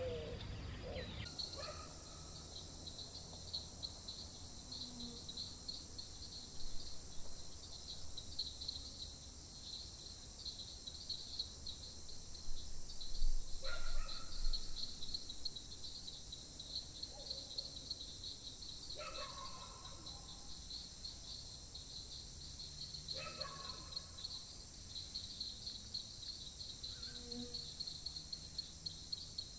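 Steady high-pitched chorus of night insects trilling with a fast pulse, four short lower calls from another animal breaking in over it.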